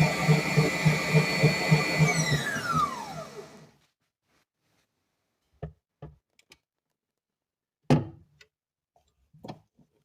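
Electric mixer beating egg whites and sugar at full speed, a steady motor whine with a rhythmic pulse. About two seconds in it is switched off and the pitch falls as the motor spins down to a stop. A few sharp knocks follow.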